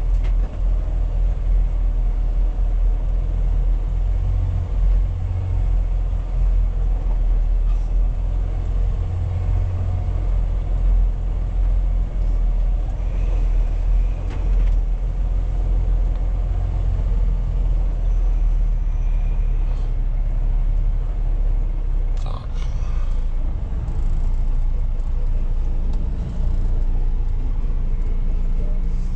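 Semi truck's diesel engine running low and steady at slow speed, heard from inside the cab. There is a brief click or knock about three-quarters of the way through.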